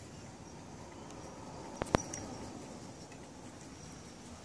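Quiet outdoor background with a faint, steady high-pitched tone, broken about two seconds in by two sharp clicks in quick succession.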